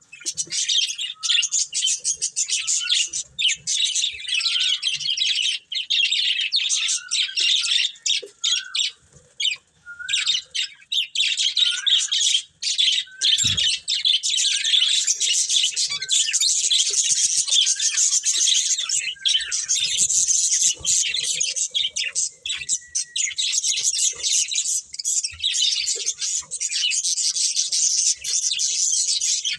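Budgerigars chattering and warbling without a break: a dense stream of rapid chirps, with short rising chirp calls repeated about once a second.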